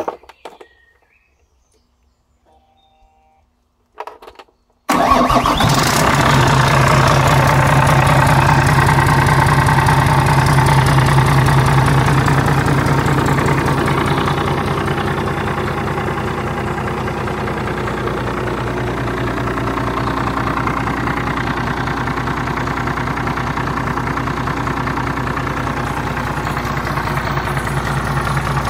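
Volvo Penta D6-350 inline six-cylinder marine diesel starting about five seconds in, catching almost at once. It runs with a steady, even beat, a little louder at first and then settling to a slightly quieter idle after about ten seconds.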